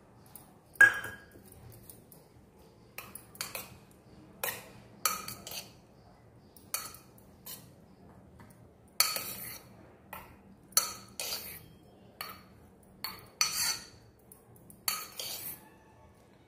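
Steel spoon stirring syrupy papaya pieces in a stainless steel bowl, clinking against the bowl again and again at an uneven pace, with one louder clink about a second in; the food colouring is being mixed into the papaya tutti frutti.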